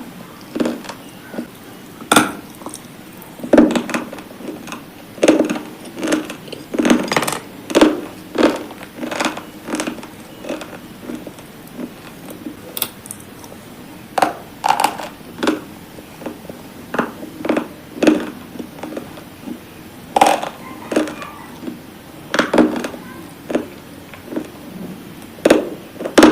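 Brittle, chalky pieces crunching again and again: sharp, irregular crunches about once a second, with short pauses between them.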